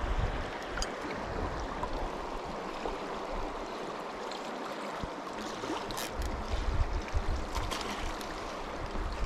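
Fast stream current rushing steadily past, with gusts of wind rumbling on the microphone in the first second and again in the second half.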